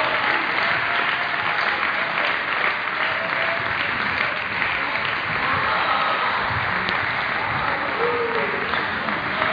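Crowd applauding steadily in a large, echoing sports hall, with a few voices calling out over the clapping.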